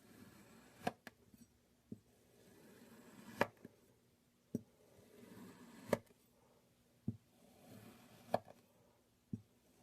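Knife cutting kinetic sand: a soft crumbling hiss as the blade slices through, ending in a sharp tap on the surface underneath about every two and a half seconds, with a lighter tap between each cut.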